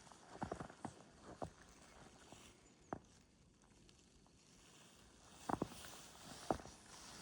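Footsteps crunching in fresh snow: a few uneven, faint crunches near the start, a single one around three seconds, and a few more near the end.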